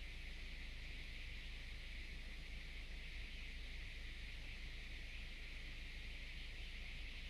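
Small electric motor spinning a persistence-of-vision LED globe display, a steady whir with a hiss and a low hum that does not change.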